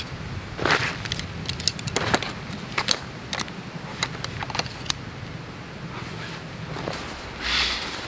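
Sections of a thin folding hammock pole (the bug-net spreader pole) clicking and tapping as they are handled and fitted together, with short rustles of nylon fabric; near the end a longer swish as the hammock's fabric is handled.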